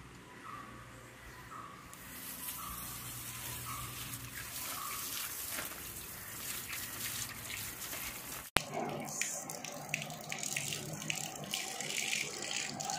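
Water running from a tap and splashing as hands are rinsed under it, starting about two seconds in. A sharp click a little past the middle, after which water runs and splashes into a stainless-steel sink.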